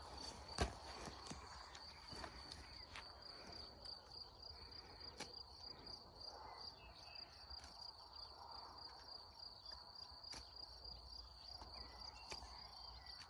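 Crickets chirring in one steady, high, faint tone. A single sharp knock comes about half a second in, with a few weaker clicks later.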